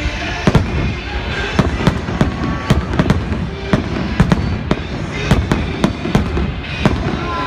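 Fireworks display: shells bursting in quick, irregular succession, about two sharp bangs a second, over a continuous rumble and crackle.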